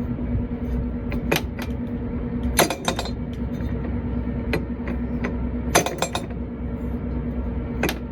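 Metal tools and parts clinking during repair work: about five sharp clinks a second or more apart, over a steady low hum.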